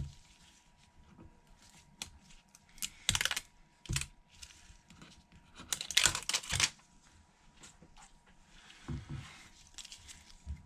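Plastic packaging crinkling in short crackly bursts, about three seconds in and again around six seconds, with small clicks and taps in between, as the new replacement screen is handled out of its wrapping.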